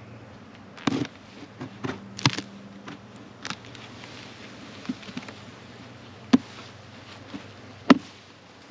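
Honey bees humming steadily while a metal hive tool pries up the wooden inner cover of a hive, giving a series of sharp cracks and knocks, the loudest two near the end.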